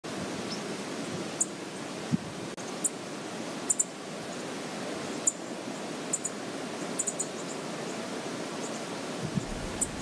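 Steady rushing of river water, with brief high chirps scattered every second or so.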